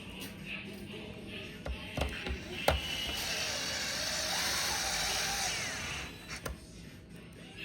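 Small electric screwdriver running for about three seconds, with a few sharp clicks of parts and tools being handled around it.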